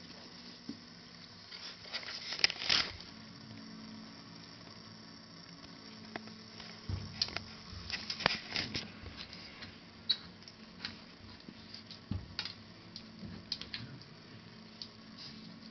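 Staffordshire bull terrier puppy moving about: irregular patters, taps and scuffs of its paws and claws, coming in short flurries.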